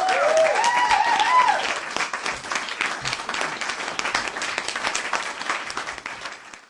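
A crowd clapping and cheering: voices whoop and shout over dense applause in the first second and a half, then the clapping carries on alone and dies away near the end.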